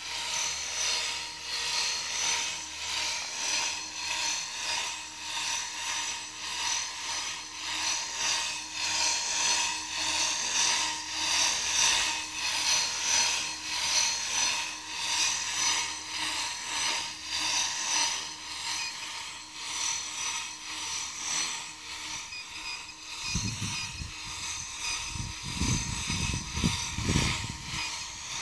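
Electric T-Rex 450-clone RC helicopter in flight: the high whirring whine of its motor, gears and spinning rotor rises and falls in loudness as it flies. Near the end a few low rumbling bursts come in under it.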